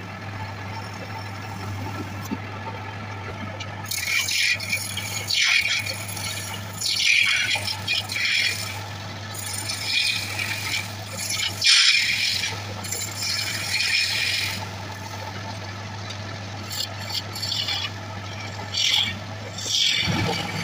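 A hand-held gouge cuts into a wooden blank spinning on a wood lathe, giving repeated bursts of scraping cutting noise as shavings come off, over the lathe's steady hum. The cutting starts about four seconds in and pauses briefly about two-thirds of the way through.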